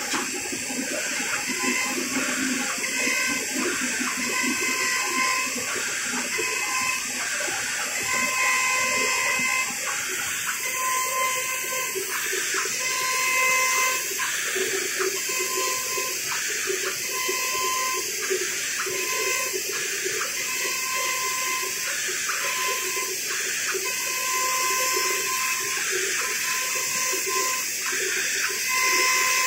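IECHO TK3S digital cutter's high-speed router spindle milling through plastic film, over a steady hiss from the dust-extraction hose. A whining tone comes and goes about every second and a half as the head works along the cuts.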